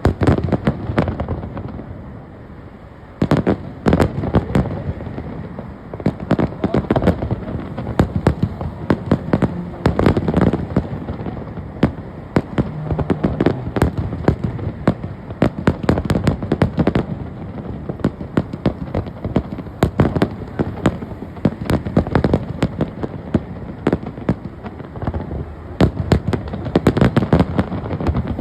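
Fireworks display: a dense, continuous run of bangs and crackling pops over a low rumble, with a brief lull about two seconds in before the barrage resumes.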